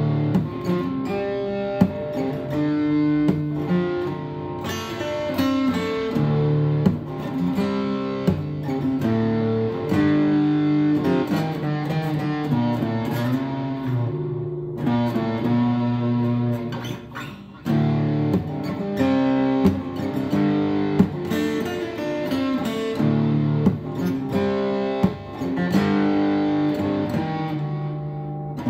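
Acoustic guitar being played, a steady run of plucked notes and chords.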